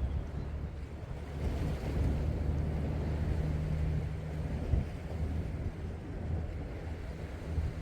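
Wind buffeting the microphone at sea, over a low steady hum and the wash of the sea.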